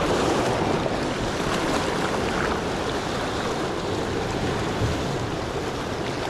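Sea surf washing on a rocky shore, with wind on the microphone: a steady rushing noise.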